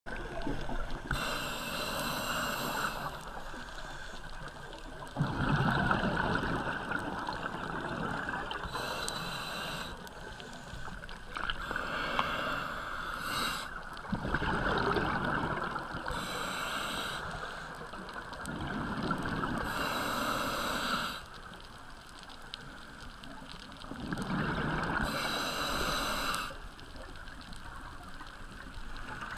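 Scuba diver breathing through a regulator underwater: drawn breaths through the regulator and rushes of exhaled bubbles, repeating about every five seconds.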